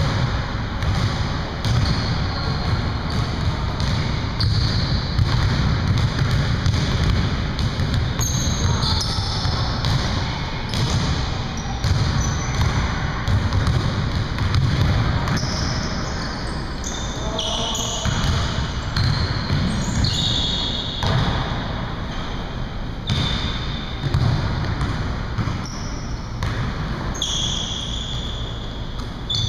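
Basketball bouncing on a hardwood gym floor during play, a string of thuds, with short high sneaker squeaks scattered through it.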